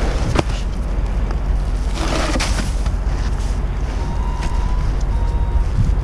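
Wind buffeting the microphone over a steady low rumble, with a sharp knock and a rustling scrape from shingle bundles being handled. From about four seconds in, a warning beeper sounds in short beeps about once a second.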